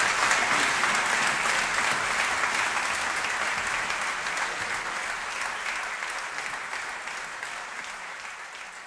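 Audience applauding, a dense mass of clapping that gradually fades away.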